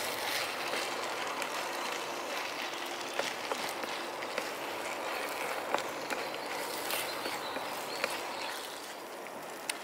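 A steady hiss of the paella cooking in the pan over a portable gas stove. A few light scrapes and taps come from the spoon stirring the peas through the rice.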